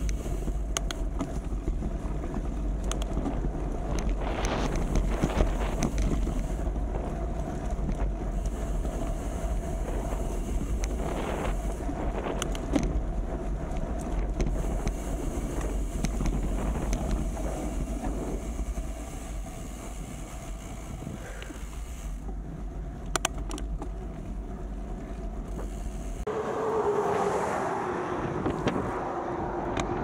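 Wind buffeting the microphone with a low, steady rumble that cuts off suddenly near the end, leaving a single tone that slides slowly down in pitch.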